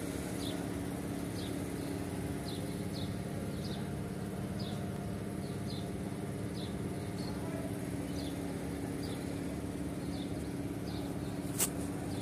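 Forklift diesel engine idling steadily. Short high chirps come over it at irregular intervals, and there is one sharp click about eleven and a half seconds in.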